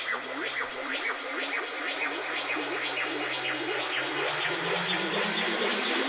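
Electronic dance music playing back, with a steady beat of about two hits a second and a synth tone that starts rising about two-thirds in.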